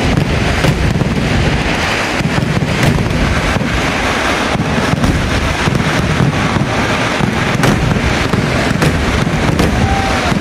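Fireworks barrage of the vedikettu: a continuous rapid rolling of explosions, many sharp cracks over a dense low rumble, with no let-up.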